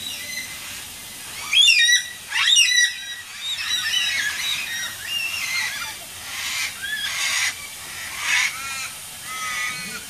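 A group of Carnaby's black-cockatoos calling over and over. The two loudest calls come close together, about one and a half and two and a half seconds in.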